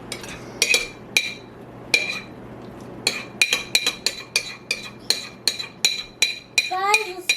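Light metal clinks, like a spoon striking a bowl, each ringing at the same high pitch: a few in the first two seconds, then a steady run of about three a second. A child's voice starts near the end.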